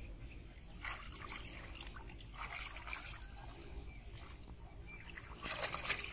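Water splashing and dripping as a wet cast net is drawn up and gathered out of shallow water, in a few short bursts, the strongest near the end.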